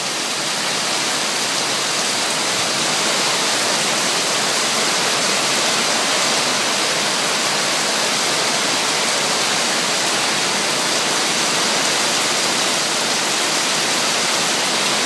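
Heavy rain pouring down, with runoff streaming off a patio roof and splashing below. The hiss is steady and even throughout.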